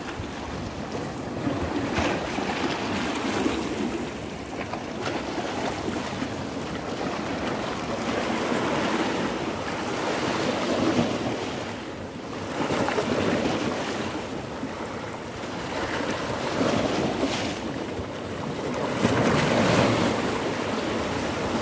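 Sea waves surging and washing against the rocks of a jetty, swelling and ebbing every few seconds, with wind buffeting the microphone.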